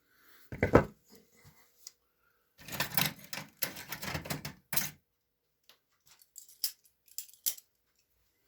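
Small metal hand tools worked at close range on a chainsaw's fuel line, vice grips and a cutter: a sharp clack about half a second in, a run of rapid clicking and rattling from about two and a half to five seconds, then a few scattered clicks.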